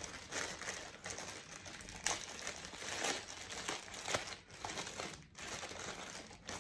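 Clear plastic packaging bag crinkling and rustling as it is handled and pulled open by hand, with several sharper crackles.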